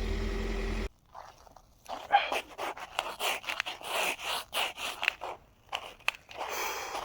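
A steady motor hum cuts off abruptly about a second in. After a short pause comes a run of irregular crunching and scraping, footsteps on frozen sleet and ice.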